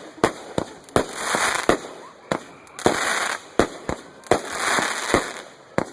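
Consumer fireworks going off in a fast series: about a dozen sharp bangs, with patches of hissing crackle between them.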